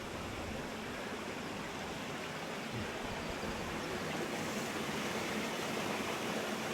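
Steady rush of flowing water, growing slightly louder about three to four seconds in.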